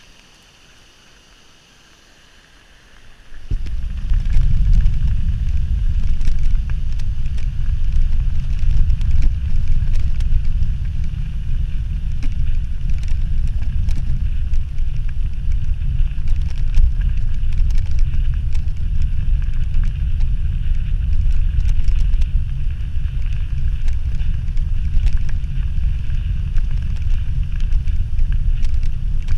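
Wind buffeting the microphone of a camera on a moving mountain bike, a loud, steady rumble that starts abruptly about three and a half seconds in, with the bike rattling and clicking over the path. Before it there is only the faint rush of a river.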